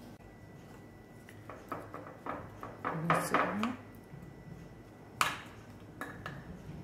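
Wooden spoon stirring soaked oats and dates in a glass bowl, clicking and knocking against the glass in an irregular run of taps, with one sharp knock about five seconds in.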